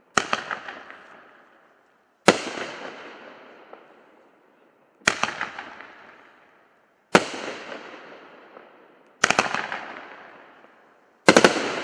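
Winda 'Mother of All Bombs' 9-shot fireworks cake firing its shells: six sharp, loud bangs about two seconds apart, several of them doubled into a quick cluster of cracks, each trailing off over a second or two before the next.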